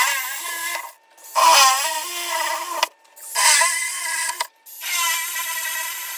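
Cordless DeWalt drill boring into porcelain wall tile in four short runs with brief stops between them; each run is a steady whine, dipping briefly in pitch as the bit bites in the second run.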